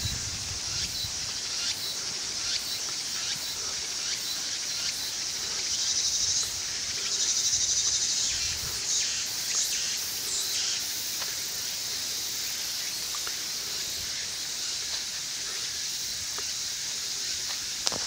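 A steady, high-pitched chorus of summer insects in a pine wood, swelling for a few seconds near the middle, with faint footsteps on a dirt path.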